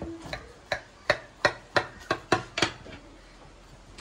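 Knife cutting a baked lasagna in its baking dish, its blade knocking sharply against the dish about three times a second. The knocks stop about a second before the end.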